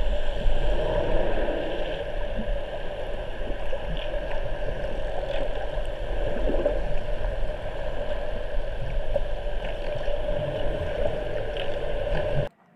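Underwater ambience picked up by a camera underwater: a steady hum and rush of water with a low rumble and light gurgling. It cuts off abruptly near the end.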